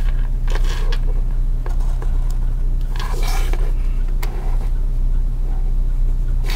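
Mechanical pencil scratching on paper in a few short strokes as lines are darkened in along a plastic drafting triangle, over a steady low hum.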